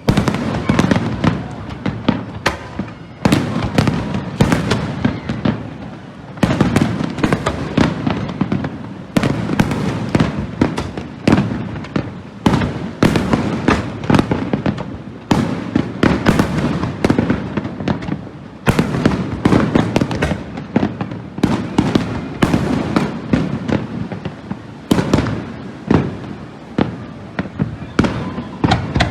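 Fireworks display: a continuous barrage of aerial shell bursts, several bangs a second, with rumbling echoes and crackle between them.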